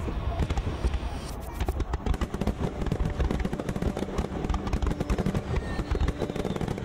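A fireworks display going off: dense rapid crackling and popping over repeated low booms of bursting shells.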